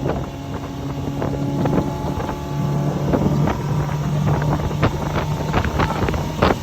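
Motorboat engine running under way, its hum stepping up in pitch about halfway through, with wind buffeting the microphone and short knocks throughout.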